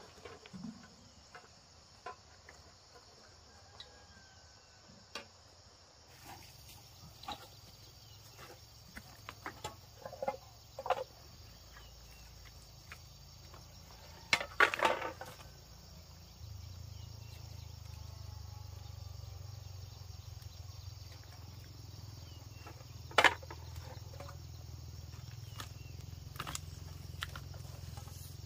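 Steady chirring of insects, with scattered clicks and rustles as items are picked up and dropped into a plastic bag; the loudest rustle comes about halfway through and a sharp click later on. A low steady hum sets in a few seconds in and grows stronger past the middle.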